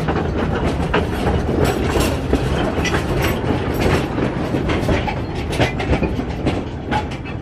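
Underground mine tour train of small ore-style carts rumbling and clattering along the rails, with a rapid run of wheel clicks and rattles, getting quieter near the end.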